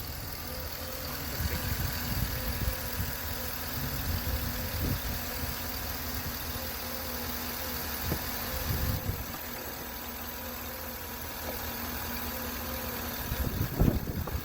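Chevy Suburban engine idling steadily after a lifter repair, with no lifter tick to be heard. A few short knocks come near the end.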